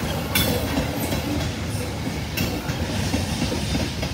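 Freight train of double-stack container cars, tank cars and gondolas rolling past: a steady rumble of wheels on rail, with a few sharper clacks as the wheels cross rail joints.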